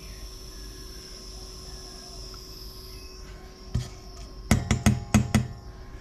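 A faint hiss as solder wire melts onto a soldering iron tip, fading out about three seconds in. Then sharp hard knocks and clacks as the keyboard's circuit board and case are handled against the desk: one knock, then a quick run of about five.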